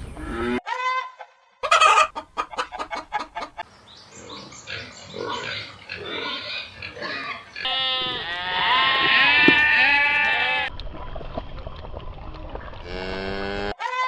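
Farm animal calls cut together in quick succession, pig and chicken among them: a short call, a brief gap, a fast run of short calls, then many animals calling over one another, loudest in the middle, and a single rising call near the end.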